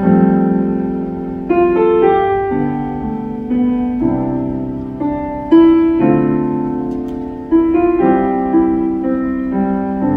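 Stage keyboard playing slow piano chords in a song's instrumental break, each chord struck and left to ring and fade before the next, with new chords coming every half second to two seconds.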